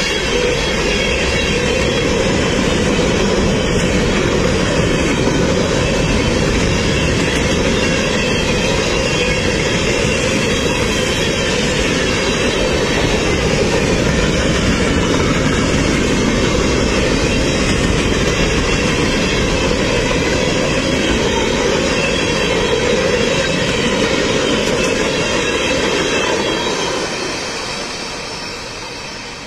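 Freight train cars rolling past on the rails, loud and steady, fading away over the last few seconds as the train moves off.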